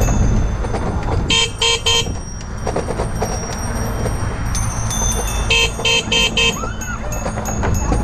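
Loud Bike, a car-style horn mounted on a bicycle, gives a quick burst of three short toots about a second and a half in, then four more near the six-second mark, over steady low wind rumble on the microphone.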